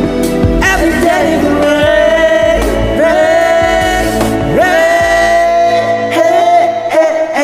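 Karaoke singing of a pop ballad over a backing track, with long held notes.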